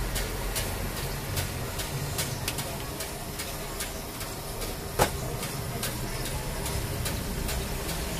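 Street-stall ambience: a gas stove burner's steady hiss over the low rumble of street traffic, with scattered light ticks and one sharper clank about five seconds in.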